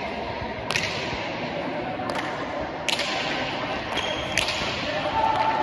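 Basque pelota ball being struck and smacking off the frontón walls: a few sharp cracks, about a second, three seconds and four and a half seconds in, each echoing through the large hall.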